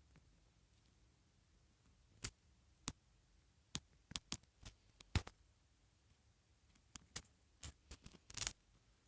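Small scissors snipping: a scattered run of short, sharp clicks, several close together around the middle and again near the end, with a brief rustle among the last ones.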